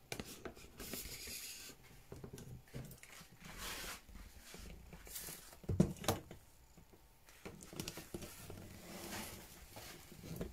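Faint rustling and handling noise from a phone camera being picked up and carried, with two sharp knocks close together about six seconds in.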